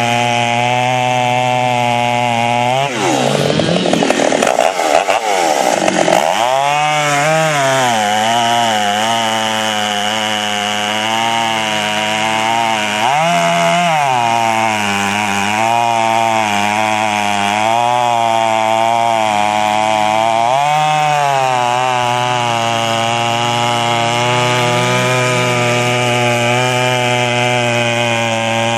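Poulan Pro 655 boost-port two-stroke chainsaw cutting through a large log at full throttle, its engine pitch wavering constantly under the load. The pitch dips deeply and climbs back a few seconds in, and briefly rises twice later on.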